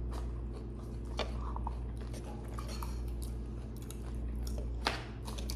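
Close-up eating sounds: chewing and biting food, with scattered short crunches and clicks, the loudest about a second in and near the end, over a steady low hum.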